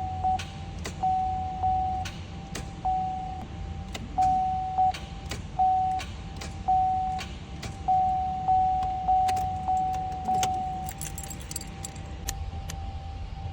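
Electronic beeper sounding in short, uneven beeps, roughly a dozen of them, each starting with a sharp click over a fainter steady tone of the same pitch. Scattered clicks come in between, and a light metallic jingle follows near the end.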